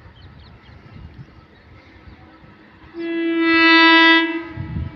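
Approaching Indian Railways electric locomotive sounding its horn: one steady, single-pitch blast about three seconds in, lasting just over a second.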